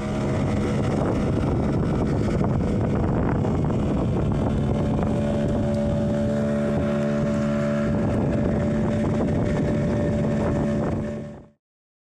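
Boat motor running steadily at one pitch, with wind rushing over the microphone; the sound cuts off abruptly near the end.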